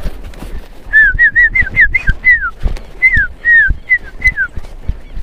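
A herder whistling a quick run of about a dozen short, falling notes to drive cattle, over the steady clop of a horse's hooves at a walk.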